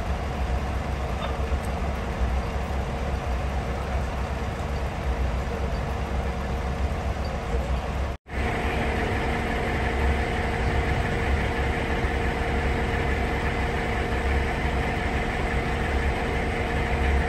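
Heavy diesel engine of a fire apparatus idling steadily, a deep low rumble under a constant hiss. The sound drops out for a moment about eight seconds in, then a steady hum with a few held tones joins the rumble.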